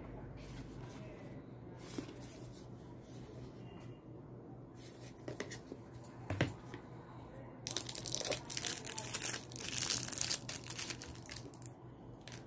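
Hands handling and opening a small cardboard box, with a sharp knock about halfway through, then a clear plastic packaging bag crinkling for several seconds near the end, the loudest sound here. A low steady hum runs underneath.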